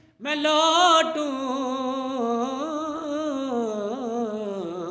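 A man singing an Urdu naat unaccompanied, holding the word 'main' as one long melismatic phrase with wavering ornaments that slowly falls in pitch.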